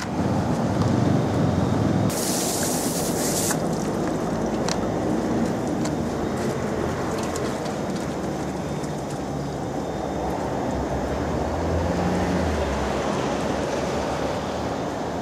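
Steady low rumble of machinery or traffic. About two seconds in, a sharp hiss lasts a second and a half.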